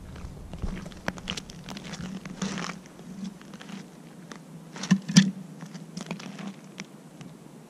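Footsteps in rubber boots on thin lake ice, crackling and clicking as an angler walks up, then handling sounds at a pike tip-up, with two sharp knocks about five seconds in.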